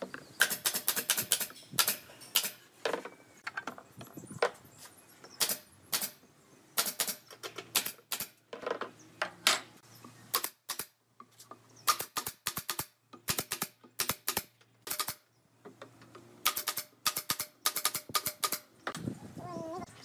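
Pneumatic nail gun firing nails into pine boards, sharp clacks in quick runs of several shots with short pauses between runs.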